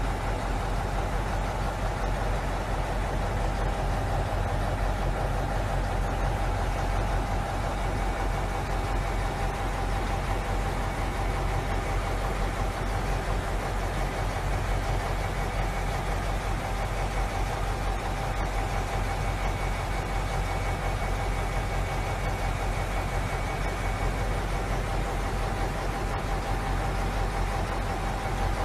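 Heavy truck engine running at a steady pace: a constant low drone with a steady whine over it.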